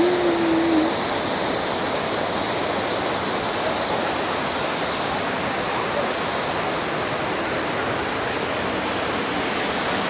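Steady, even rush of the Todtnau waterfall, mountain water falling over rocks.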